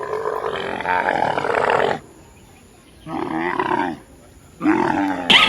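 A large animal calling: three deep, wavering calls, each shorter than the last, with quiet pauses between them. A different, higher-pitched sound cuts in abruptly near the end.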